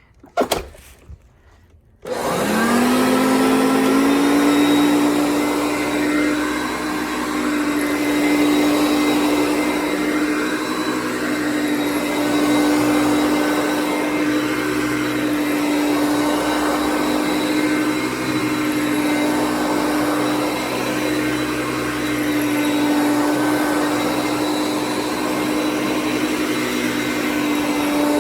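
A short knock, then about two seconds in the motor of a Hoover Concept One upright vacuum cleaner switches on, its pitch rising quickly as it spins up. It then runs steadily with a whooshing rush of air, the level swelling and dipping gently every few seconds.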